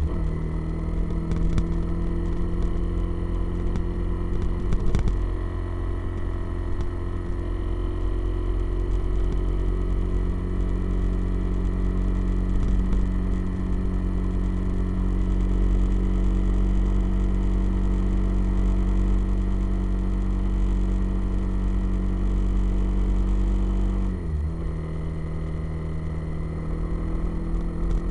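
Motorcycle engine running at a steady cruising speed, its note dipping in pitch right at the start and again about 24 seconds in, like a gear change or easing off the throttle. Wind rumbles heavily on the microphone.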